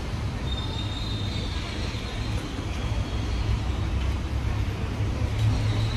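Street traffic ambience: a steady low rumble of passing road vehicles.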